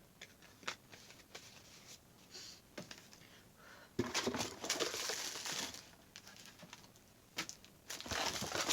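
Paper and packaging rustling and crinkling as items are handled, with scattered small taps and clicks. There are two louder stretches of rustling, about four seconds in and near the end.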